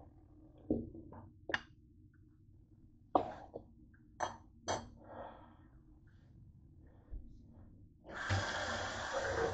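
A glass pot lid and a metal spoon clink and knock against a cooking pot several times as the lid is set on. About eight seconds in, a kitchen sink faucet is turned on and water runs steadily.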